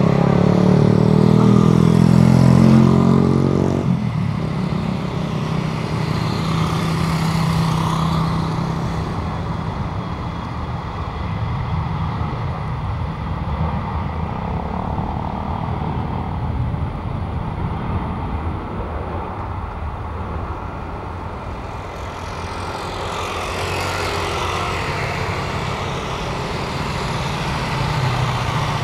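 A jet airliner passing low overhead on arrival: a steady engine rumble and hiss that swells twice, with a sweeping, shifting hiss each time. A loud low engine drone, like a nearby road vehicle, cuts off suddenly about four seconds in.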